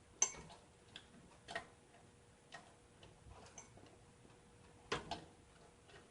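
Irregular light clicks and taps, about half a dozen, from handling a CPU cooler fan while fitting it onto a motherboard.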